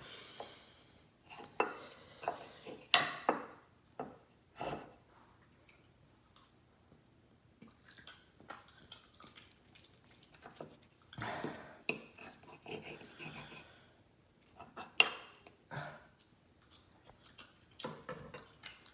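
Cutlery clinking and scraping on a plate in irregular short bursts, with a few sharper clinks about 3, 12 and 15 seconds in.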